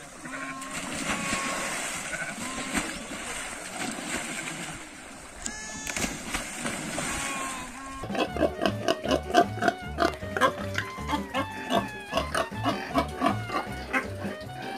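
For about eight seconds, sheep jumping into a pond and swimming: splashing water with a few short bleats. Then an abrupt change to a pig grunting in quick repeated bursts, with music behind it.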